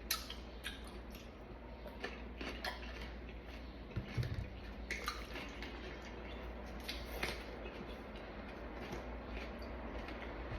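Someone eating fruit and yogurt: scattered light clicks and taps of cutlery against a dish, with a dull bump about four seconds in.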